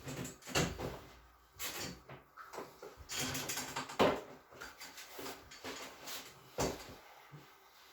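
A person turning over onto their stomach on a chiropractic treatment table: irregular rustling with creaks and knocks from the table, the sharpest knock about four seconds in.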